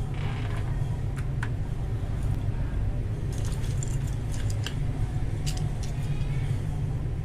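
Plastic keycaps being handled and pressed onto mechanical keyboard switches: scattered light clicks and clatter, a couple about a second in and a cluster between about three and five and a half seconds, over a steady low hum.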